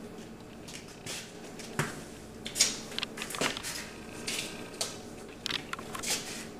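Hands handling small objects: a run of irregular light knocks, taps and rustling scrapes, the sharpest about two and a half seconds in, over a steady low hum.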